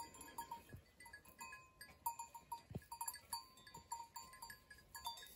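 Faint, irregular clinking of a bell worn by a grazing animal, its clapper striking several times a second as the animal moves and feeds.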